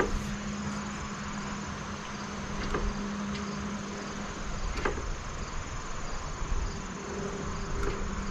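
Steady outdoor hiss with insects buzzing, a low hum that stops about halfway through, and a few faint clicks.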